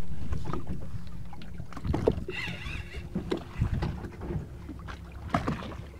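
Steady low rumble of wind and water around a boat drifting on open sea, with a few light knocks and clicks scattered through it.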